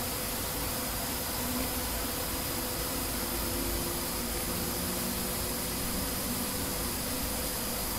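Steady hiss with faint steady hum tones and no distinct events: the background noise of a computer screen recording's microphone.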